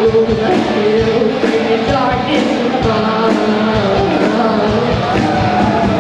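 Live rock band playing a song with a steady drum beat: a female singer over electric guitars, bass guitar, drum kit and keyboard.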